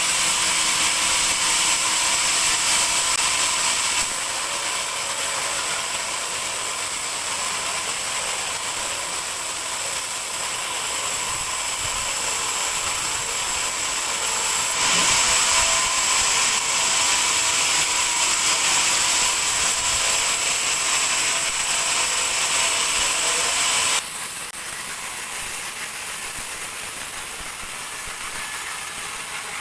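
Band sawmill blade ripping through a large dry teak log: a steady, loud machine noise with a high whine, changing abruptly in level a few times.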